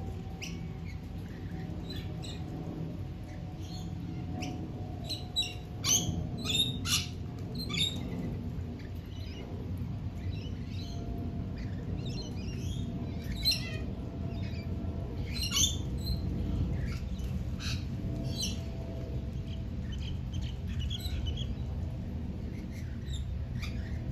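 Rainbow lorikeets calling in short, shrill screeches and chatter, in scattered bursts that bunch together several seconds in and again around the middle. A steady low rumble runs underneath.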